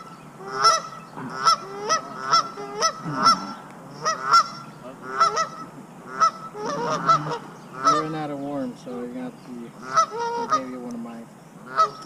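Geese honking over and over, about two honks a second, easing off about halfway through and picking up again near the end.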